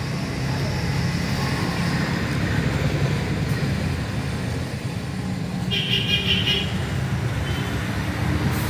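Steady rumble of road traffic passing, with a vehicle horn sounding once, just under a second long, about six seconds in.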